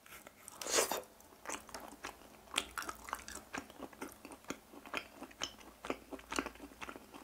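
Close-miked chewing of grilled chicken heart skewers: a bite pulling the meat off the skewer, loudest just under a second in, then a steady run of chewing clicks and smacks.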